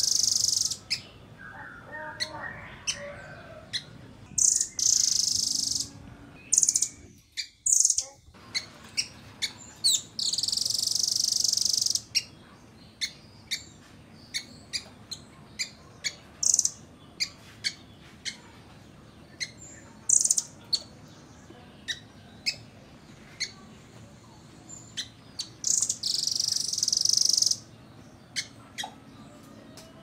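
Blue nuthatch calling: high-pitched rapid trills of one to two seconds, four times, with many short sharp single notes between them.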